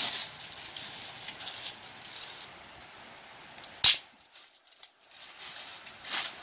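Dry leaf litter crunching and rustling under feet and hands, in short crisp bursts, with one sharp crack about four seconds in.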